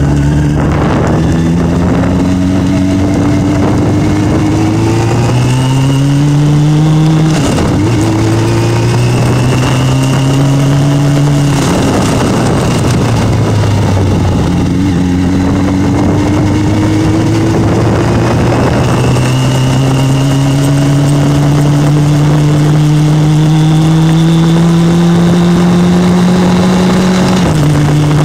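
Motorcycle engine running under way, with wind rushing past. Its pitch climbs slowly and drops back sharply several times, the longest climb lasting about twelve seconds before a drop near the end.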